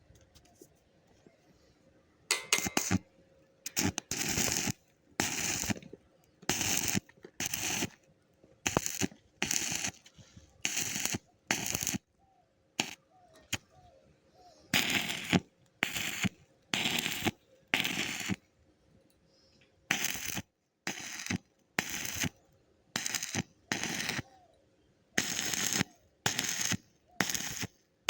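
Electric arc welding in short bursts: the arc is struck again and again, each crackling run lasting under a second, about one a second, with a pause of a couple of seconds midway. The welder is laying the weld on a little at a time.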